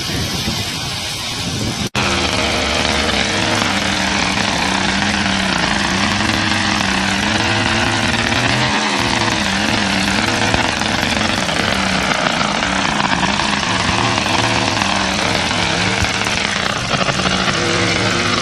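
A small engine running steadily, its pitch wavering only a little. It begins after a sharp break about two seconds in.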